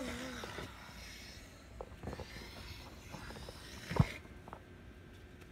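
Handling noise: faint rustling with a few light clicks, and one sharp knock about four seconds in.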